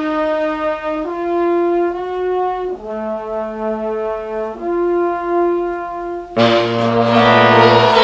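A 1940 swing orchestra playing from a 78 rpm record: the brass holds a series of sustained chords, shifting to a new chord every one to two seconds. About six seconds in, the full band comes in louder and busier.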